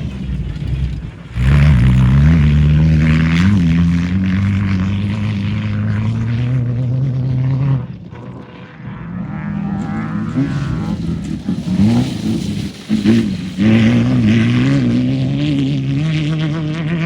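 Off-road race vehicles' engines running hard one after another. The first comes in loud about a second in, revving up and shifting gears twice, and falls away near the middle. A second follows with several quick revs and shifts and keeps running near the end.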